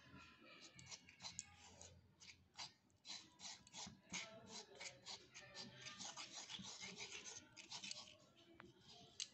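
Faint, rapid, irregular scraping and clicking of a small steel spoon stirring thin flour-and-water batter in a tiny clay bowl.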